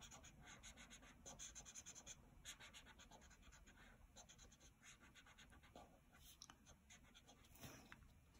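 Faint scratching of a felt-tip marker rubbing back and forth on paper in quick short strokes as it colours in, thinning out near the end.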